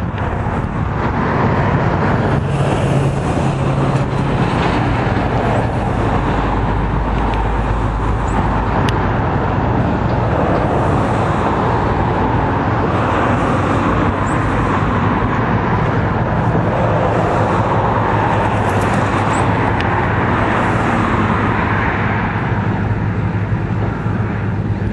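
Cat 140M Series 2 motor grader's diesel engine running steadily as the grader works dirt, mixed with road traffic passing.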